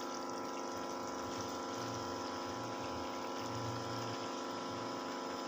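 A steady machine hum, several even tones held level, over a faint hiss.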